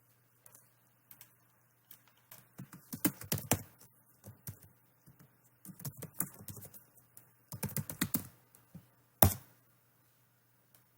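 Typing on a computer keyboard in irregular bursts of keystrokes, with one sharper click about nine seconds in, over a faint steady hum.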